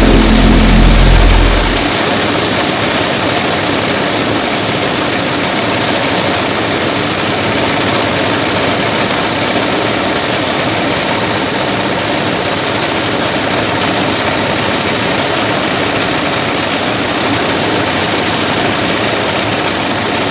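Paddy thresher running under load, its threshing drum driven by a J190NL engine, while sheaves of paddy are fed into it: a steady, dense mechanical noise. A loud low hum stands out for the first couple of seconds, then drops away.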